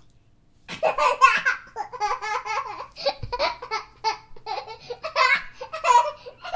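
A young child laughing in a long run of quick, high-pitched bursts, starting just under a second in.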